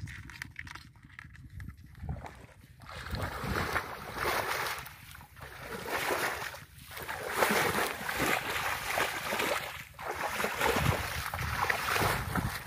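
Shallow muddy pond water sloshing and splashing as legs wade through it. It comes in repeated surges from about three seconds in, over a steady low wind rumble on the microphone.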